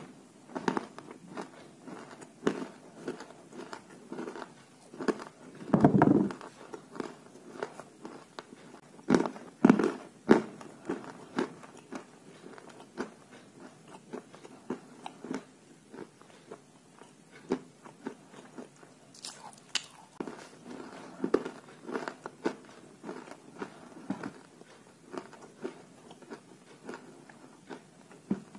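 Dry white chalk pieces being bitten and chewed, crisp crunches coming at an irregular pace, with the loudest bites about 6 and 10 seconds in.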